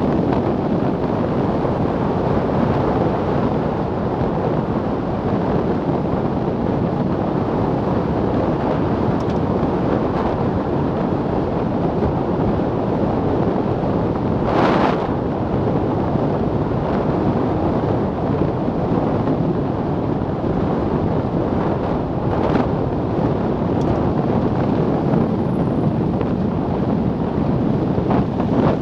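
Steady rush of wind over the microphone mixed with tyre and road noise from a Milan Mk4 velomobile rolling at about 50–65 km/h. A brief louder rush comes about halfway through.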